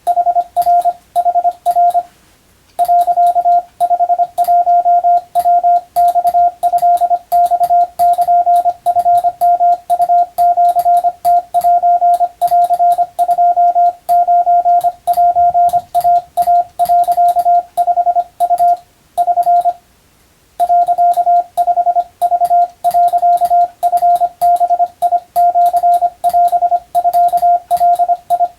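Hand-sent Morse code (CW): a single steady high-pitched tone keyed on and off in dots and dashes at a steady sending speed, spelling out Japanese wabun telegram practice text. The keying breaks off briefly about two seconds in and again about twenty seconds in.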